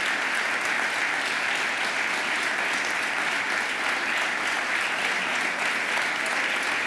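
Legislators applauding, with many hands clapping together in a steady, even round of applause.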